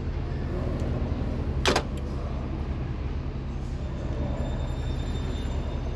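Steady low rumble of a subway train in the station, with one short, sharp noise burst a little under two seconds in.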